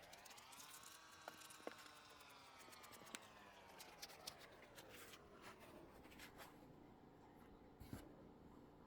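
Faint rustling and scattered small clicks of a banana squishy toy being handled and squeezed. Under it, a faint pitched tone rises over the first second, then falls slowly and fades out about six seconds in.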